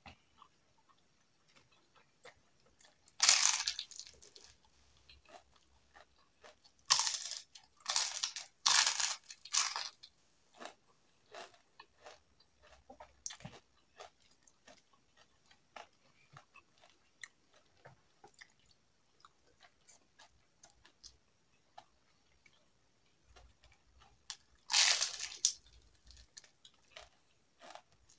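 Crunchy bites of crispy fried chicken skin being bitten and chewed close to the microphone: a few loud crunches, each about a second long, with quiet wet chewing clicks in between.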